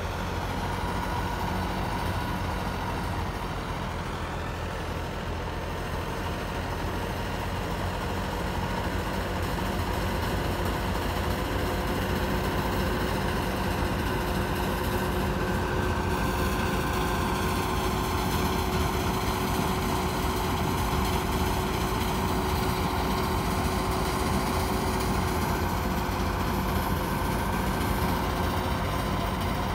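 Massey Ferguson 260 tractor's diesel engine running steadily under load, driving a stationary wheat thresher through its shaft: a continuous low hum with several steady whining tones over it, growing a little louder about a third of the way in.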